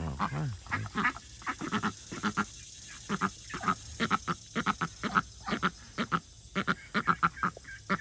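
A flock of white domestic ducks quacking, many short calls coming in uneven runs of several a second.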